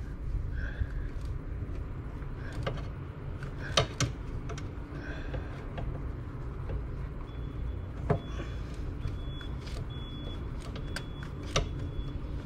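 Scattered metallic clicks and knocks from a ratchet with an extension and spark plug socket as a tight, 11-year-old spark plug is worked loose, over a low steady rumble.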